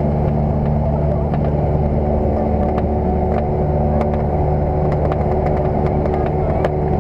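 Single-engine light aircraft's piston engine and propeller running steadily at low power while taxiing on grass, heard from inside the cockpit. The engine note wavers briefly about two seconds in, with faint scattered clicks and rattles over it.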